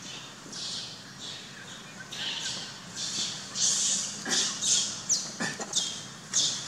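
A run of short, harsh, high-pitched animal chirps and squawks, coming quicker and louder in the second half, with a couple of sharp falling squeaks.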